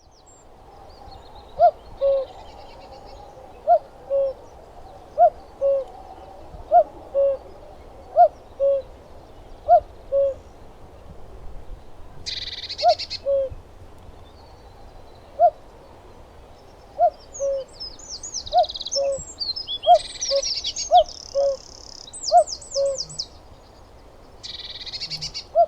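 Common cuckoo singing its two-note falling 'cu-coo' call, repeated over and over about every second and a half. Other small birds chirp and twitter in higher, quicker phrases now and then.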